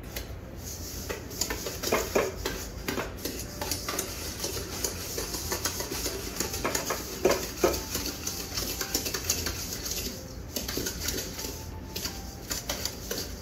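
A dough whisk scraping and knocking against a stainless steel mixing bowl as butter and sugar are creamed together by hand, with a few sharper clanks along the way.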